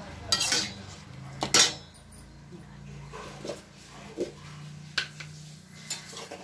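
Steel ladle clinking and scraping against a stainless steel pan while stirring thick mutton gravy, with several sharp clanks, the loudest about a second and a half in. A low steady hum runs underneath.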